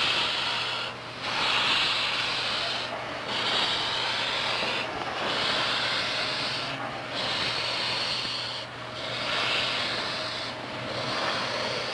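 Steam locomotive exhaust: long hissing chuffs that swell and fade about every two seconds, over a faint steady hum.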